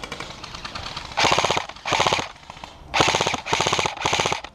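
Airsoft rifle firing five short full-auto bursts of rapid clicking shots, starting about a second in.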